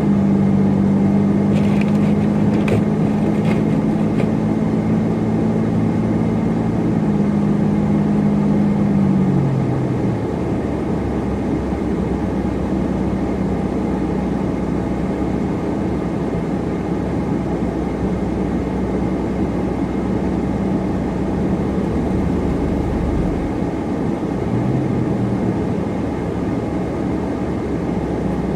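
Car driving: a steady engine drone that drops in pitch about eight seconds in, then an even rumble of tyre and road noise.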